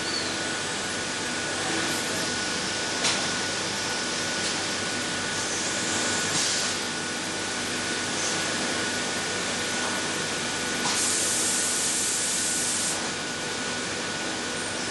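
Pneumatic valve grinder for a MAN B&W exhaust valve running on compressed air: a steady air hiss with a faint steady whine. There is a sharp click about 3 seconds in, and the hiss grows louder for about two seconds near the end.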